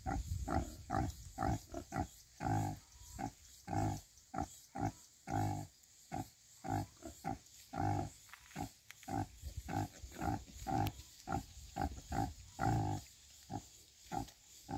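Nursing sow grunting in a steady rhythm of short, low grunts, about two or three a second, while her piglets suckle: the rhythmic nursing grunts a sow makes during a suckling bout.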